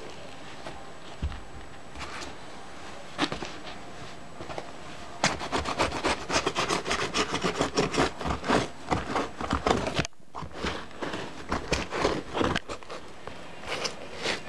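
Muddy rubber sole of a JCB rigger boot rubbing and scraping back and forth over white Nike Air Max 95 trainers, a few scattered scrapes at first, then quick rough strokes several a second from about five seconds in, a short pause just after ten seconds, then sparser strokes.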